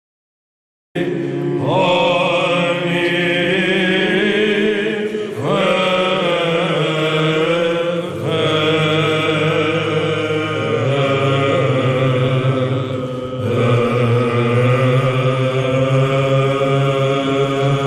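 Greek church-service chant from a Voice of Greece broadcast: voices singing a slow, ornamented melody over a steady held low note. It starts suddenly about a second in.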